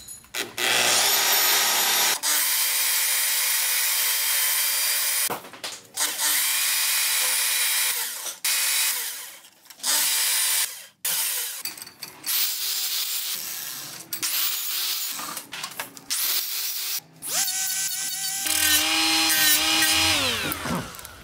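Milwaukee portable bandsaw cutting a small round metal plate, in several short stretches with hard breaks between them and a steady motor tone under the cutting. Near the end a die grinder with a small sanding disc runs and then spins down.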